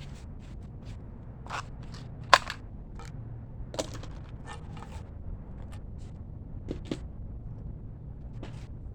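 Scattered sharp clicks and knocks, with the loudest about two seconds in and another a second and a half later, over a low steady rumble.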